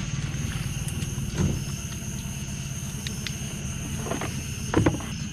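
A boat motor running steadily at idle, with several hollow knocks as a long frog-catching pole bumps against the aluminum boat. The loudest knocks come near the end, as the pole is swung back into the boat.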